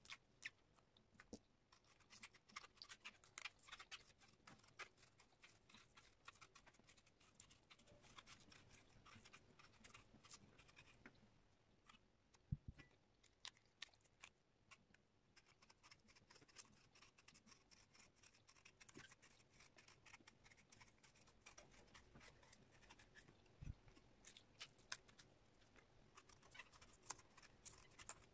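Knife peeling whole persimmons: faint, quick scraping and clicking as the blade cuts through the skin in long strips, with a soft knock about halfway through and another later on.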